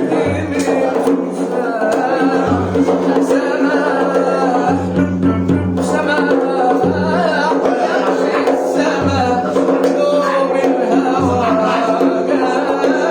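A song: a man singing over instruments, with a low bass note that comes in and out every second or two.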